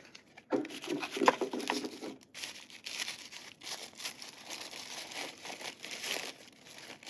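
Crinkly wrapping being handled, a continuous crackling rustle that sets in about two seconds in, after a few light knocks.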